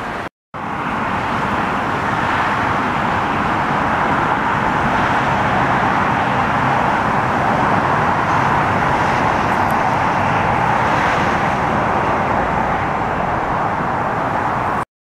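Steady rushing noise of a jet airliner's engines on landing approach, swelling slightly midway.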